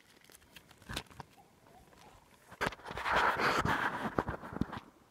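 Plastic zip-lock bag crinkling and rustling as it is handled, loudest for about two seconds near the end, after a single knock about a second in.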